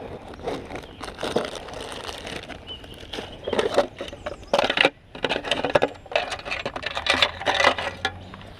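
Irregular rustling, clicks and knocks close to the microphone, handling noise that gets louder and busier about halfway through.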